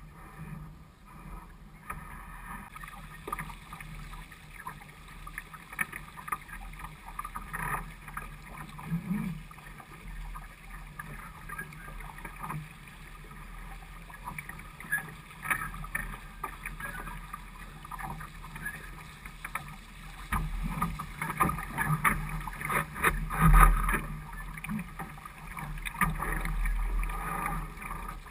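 Water sloshing and slapping against the hull of a small sailing dinghy under way, in irregular splashes. It grows louder and busier about twenty seconds in.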